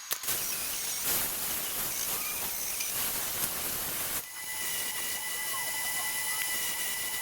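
Loud steady hissing that changes character about four seconds in, when a steady high tone joins it.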